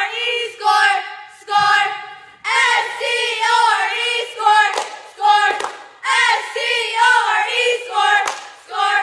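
A squad of four cheerleaders chanting a cheer in unison, spelling out 'S-C-O-R-E' and calling 'Score, score' in repeated short shouted phrases, with a few sharp thumps between them.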